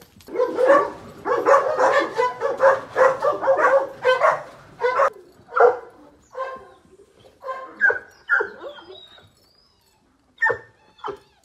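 A dog barking repeatedly: a fast run of about three barks a second, then slower, spaced barks, and two last barks near the end.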